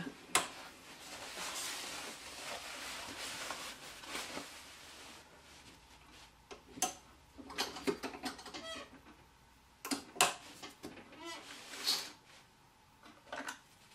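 Antique Singer 27 treadle sewing machine running a few stitches back over the end of a seam, a steady clatter for the first few seconds that then stops. After that come scattered sharp clicks and knocks from the machine and the fabric being handled.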